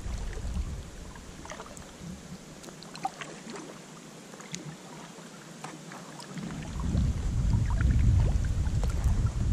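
Paddling an Intex K2 Challenger inflatable kayak on calm water: small drips and splashes from the paddle. A low rumble fades about a second in and comes back about six and a half seconds in.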